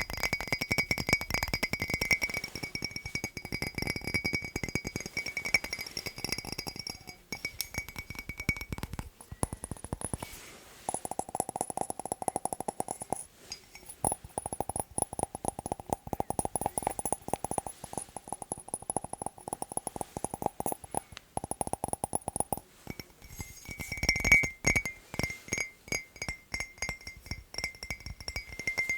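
Fast tapping on hard objects, many taps a second, with each object ringing at its own pitch. The tapping moves to a lower-ringing object about eleven seconds in and back to a higher-ringing one near the end.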